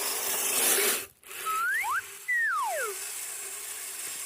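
Whine of the Kyosho Blizzard's electric motor: after a second of steady hiss it rises in pitch twice, then falls away, as the throttle is worked.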